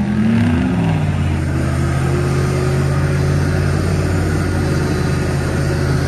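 Two Jeeps' swapped-in V8 engines, a 6.0 in a TJ and a 6.2 in a JK, held at high revs as they pull against each other on a tow strap, wheels spinning on snow. In the first second one engine note climbs while another drops, then both hold steady.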